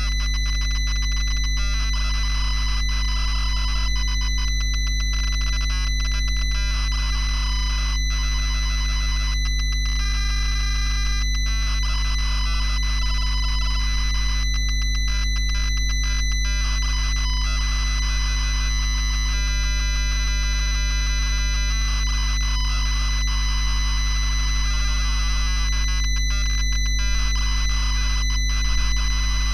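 ZX Spectrum 48K cassette data signal during a tape load: a dense, noisy screech whose pattern changes every second or so as the data blocks stream in, over a steady low hum.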